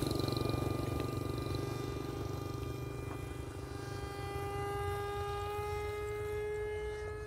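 Steady whine, slowly rising in pitch, from the electric ducted fan of a foam Su-27 RC model jet in flight, over a fading low rumble from a passing motorcycle.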